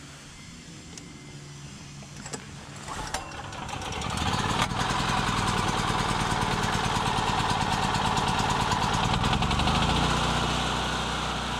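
An engine starts about three seconds in, after a click, and then runs steadily with a rapid, even pulse, easing off slightly near the end.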